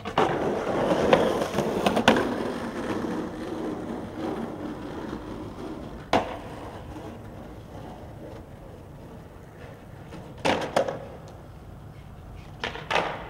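Skateboard wheels rolling on pavement, loudest at first and fading, broken by sharp clacks of the board popping and landing: a single one about six seconds in and a quick pair about ten and a half seconds in, with a few more near the end.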